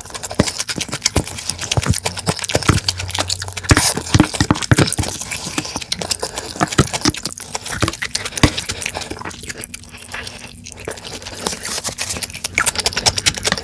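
Close-miked eating: wet chewing, lip smacking and slurping of jjajang black bean sauce taken from a wooden spoon, a dense run of sharp wet clicks that eases off briefly past the middle. Near the end, a wooden spoon scrapes a plastic bowl.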